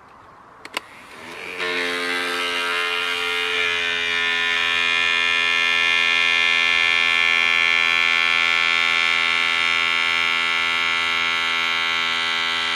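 Small battery-powered DC hobby motor on a model boat starting up about a second and a half in and then running with a steady whine. A couple of short clicks come just before it starts.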